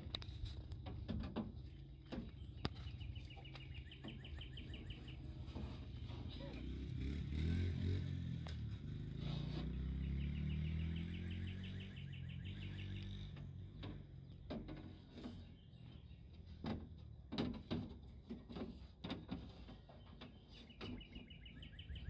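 Scattered light knocks and clicks as a replacement door window glass is handled and worked down into a pickup truck's door frame. A bird trills several times in the background. A low rumble swells and fades in the middle.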